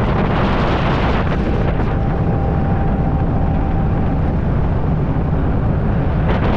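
Volkswagen dune buggy engine running under way, with heavy wind buffeting the microphone.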